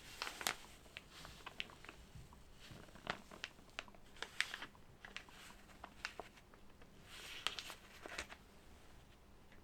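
Hands unpacking and handling small keyboard accessories and their packaging: irregular light clicks and taps with a few brief rustles.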